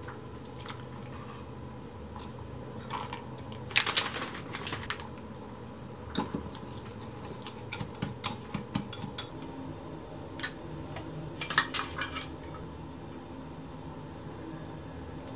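A metal utensil clicking and clinking against a glass measuring cup while beating eggs mixed with chopped vegetables: scattered light taps, a few quick runs of them, over a faint steady low hum.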